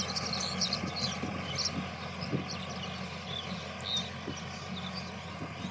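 Mahindra tractor's diesel engine running steadily while working a rotary tiller, with birds chirping over it.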